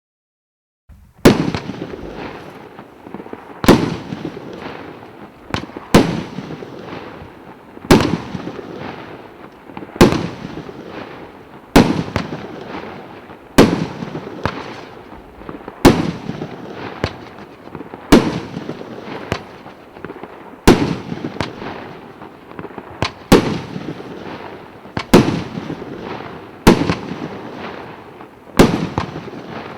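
A 1.2-inch, 49-shot firework cake firing, starting about a second in: a sharp bang about every two seconds, each followed by a fading tail of sound.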